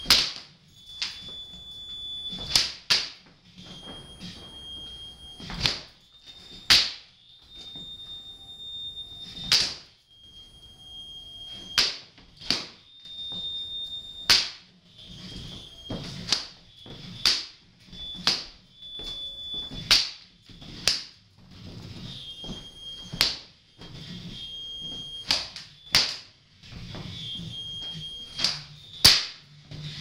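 Belts whipped against the floor and walls with their strap ends, giving sharp irregular slaps about once a second. A high steady tone comes and goes between the slaps.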